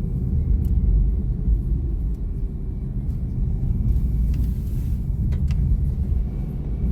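Honda N-BOX Slash kei car driving on a snowy road on Yokohama iceGUARD 6 studless tyres: a steady low rumble of road and engine noise, with a few faint clicks.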